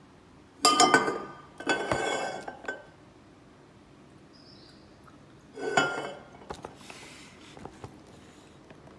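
Glass bottles clinking together on a countertop: a sharp clink with a short ring about a second in, a run of clinks just after, and another clink a little past the middle, followed by a few light ticks.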